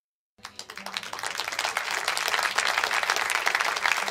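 A crowd applauding, starting about half a second in and building up over the first second or so, then holding steady.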